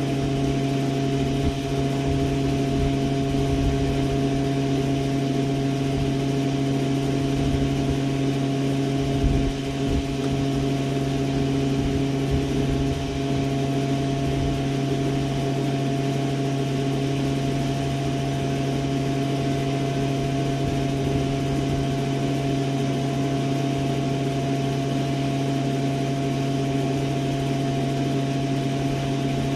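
Steady machine hum at an unchanging pitch, running without a break. A few low bumps stand out about a third of the way in.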